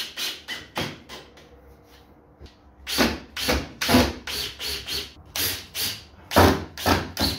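Makita cordless drill-driver driving screws into a wooden door frame, run in quick short bursts on the trigger, with a pause of about two seconds near the start.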